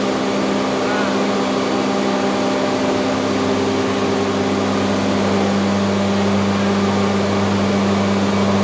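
Steady drone of running machinery in an engine room, a constant low hum over a broad rushing noise, its low tone shifting slightly about halfway through.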